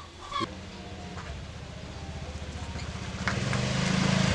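Small motor scooter engine running as the scooter rides closer, growing steadily louder.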